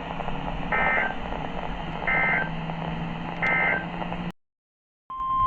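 Three short warbling data bursts about a second and a half apart: the SAME end-of-message code that closes a NOAA Weather Radio alert, over a faint hiss and hum of radio static. The sound then cuts out, and near the end the steady weather radio warning alarm tone of the next alert begins.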